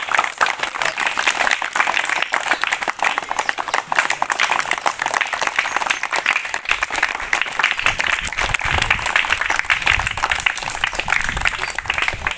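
Crowd applause: many people, children among them, clapping continuously.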